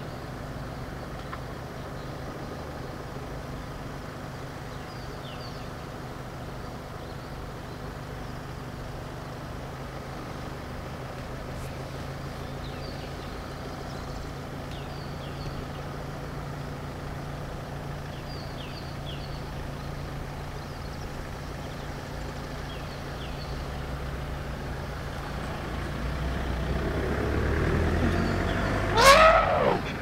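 A low steady engine hum with faint bird chirps over it. In the last few seconds a vehicle approaches and passes close by: its rushing sound swells, sweeps up and then down in pitch as it goes past about a second before the end, then drops away quickly.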